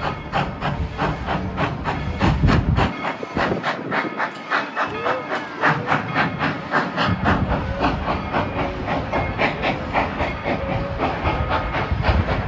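Coal-fired steam locomotive working, with a rapid, regular beat of exhaust and hissing steam over a low rumble.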